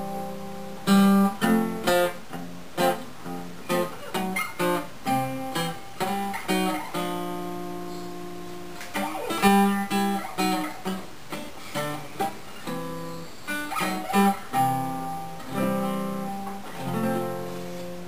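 Gibson L-48 archtop acoustic guitar being played to show its sound after repair: a loose run of plucked single notes and chords, with one chord left ringing for about two seconds partway through.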